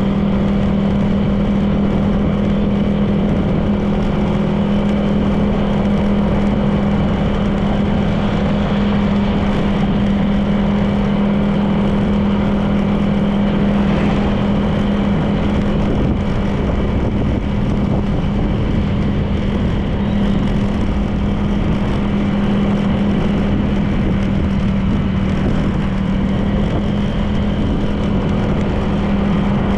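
Honda PCX 160 scooter's single-cylinder four-stroke engine running at a steady cruising speed, with road and wind noise from riding.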